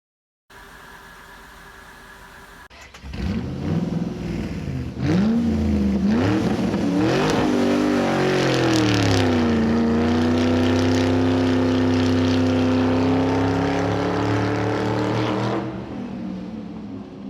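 Mercedes-Benz W163 ML-Class V8 engine idling quietly, then revved up and down several times from about three seconds in. It is then held at a steady raised speed for about six seconds and drops back toward idle near the end.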